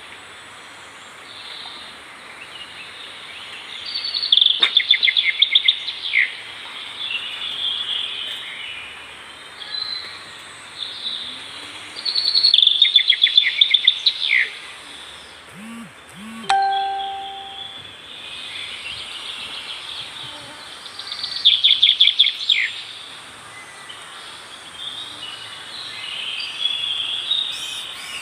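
Forest birdsong: one bird sings a loud, rapid trill three times, about eight seconds apart, while other birds call more softly in between. A steady high hiss runs underneath.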